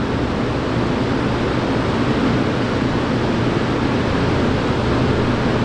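Refrigeration unit in a cold storage room running: a steady low hum under an even rushing hiss.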